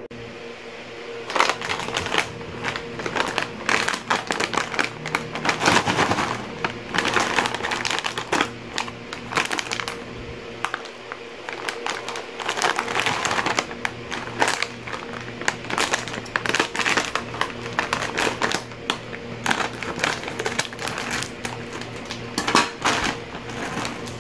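Metallized plastic snack bag crinkling as it is handled and turned over by hand, a dense irregular crackle starting about a second in; the bag is torn open near the end.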